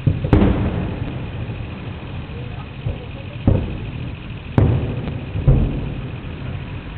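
Aerial firework shells bursting: four booms within a few seconds, each trailing off.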